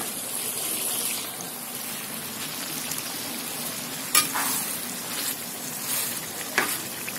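Chicken keema with peas sizzling in a pan as a spatula stirs it through, with two sharp knocks about four and six and a half seconds in.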